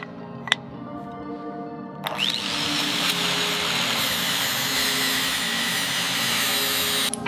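A power tool starts with a rising whine about two seconds in, then runs steadily with a loud, even rushing noise for about five seconds and cuts off sharply near the end. Background music plays throughout.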